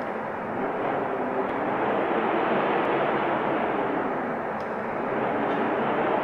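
Steady rushing wind noise that swells and eases slightly, with no gusts or breaks.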